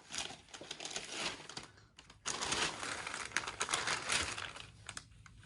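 Gift packaging being handled and opened: paper or plastic crinkling and rustling with quick clicks, busiest in the middle.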